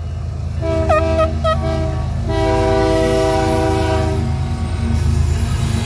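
Canadian Pacific diesel locomotive sounding its air horn at a grade crossing: two shorter blasts and then one long blast of about two seconds, over the steady low rumble of the passing locomotives.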